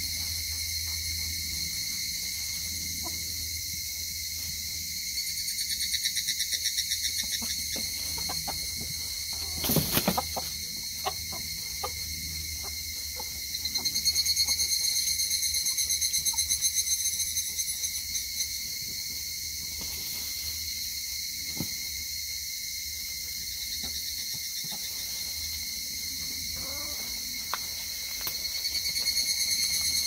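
Steady, shrill chorus of insects trilling, swelling into louder pulsing trills three times. A brief burst of noise about ten seconds in, with faint scattered clicks.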